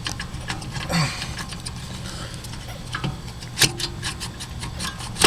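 Scattered metallic clicks, knocks and scrapes from handling a rear brake caliper and wrench as the caliper is freed from its bracket after its bolts are removed. The sharpest knock comes near the end, over a low steady hum.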